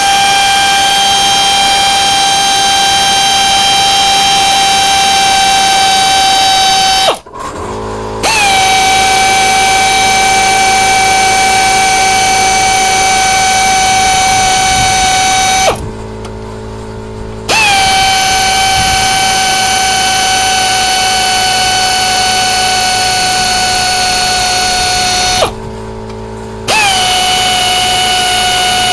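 Pneumatic air wrench running in four long, steady, high-pitched whines with short pauses between them, each starting with a brief drop in pitch as it spins out the already-loosened cylinder head bolts of a 4 hp Briggs & Stratton engine. A quieter low hum remains during the pauses.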